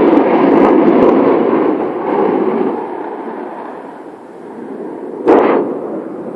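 Low-flying military jet passing overhead: loud jet noise that fades away over about three seconds, followed by a sudden loud crackling burst about five seconds in.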